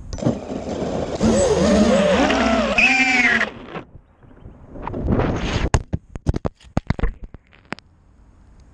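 Brushless motors and propellers of a 5-inch FPV quadcopter, heard from its onboard camera, whining loudly and sliding up and down in pitch for about three and a half seconds. After a short drop, another loud rush follows, then a quick run of sharp clacks and knocks as the quad crashes.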